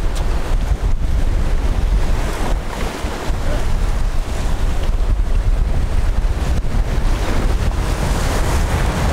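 Wind buffeting the microphone in a heavy low rumble, over the steady wash of ocean surf.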